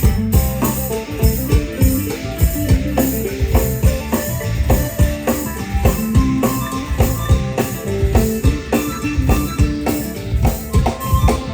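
A pong lang band from northeastern Thailand (Isan) playing a tune, with pitched melody notes over a steady drum beat.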